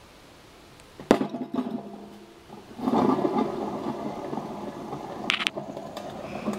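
Welded sheet-metal cube knocked a few times as it is handled, then spun on its stand: a steady whirring rattle of metal turning on its pivot that slowly fades, with one short sharp click about five seconds in.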